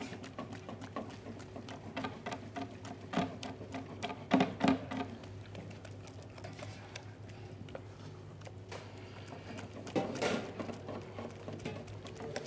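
Risotto being beaten and stirred in the pan during the mantecatura, as grated cheese and oil are worked into the rice: a run of quick, irregular clicks and soft wet patter, with a few louder knocks about four seconds in and again near ten seconds.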